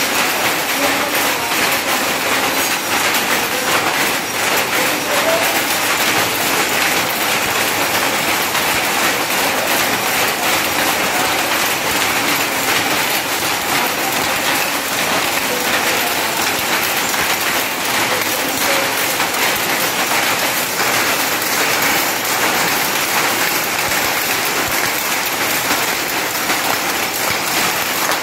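4x4 box power looms running together, a loud, steady, dense clatter of fast mechanical strokes with no pause.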